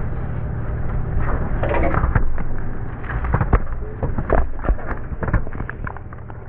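Small road roller's engine running steadily as its steel drum rolls over a row of full soda cans. Starting about a second in, a rapid, uneven string of sharp pops and cracks as the cans burst and spray.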